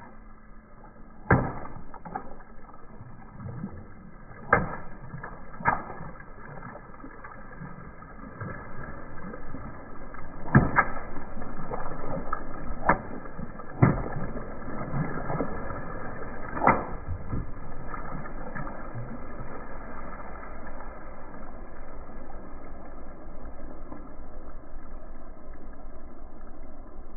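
Water balloons bursting under a slowly rolling car tyre: a series of sharp pops, seven loud ones in the first two thirds, with water spraying and splashing onto the pavement. The water rush carries on after the pops stop.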